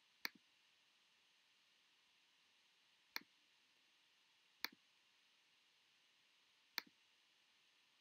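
Four single sharp clicks, one to two seconds apart, from clicking at the computer while zooming and turning the 3D view; otherwise near silence.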